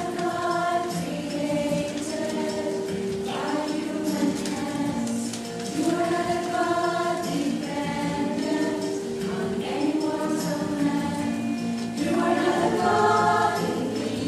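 Mixed church choir singing a slow hymn in long held phrases.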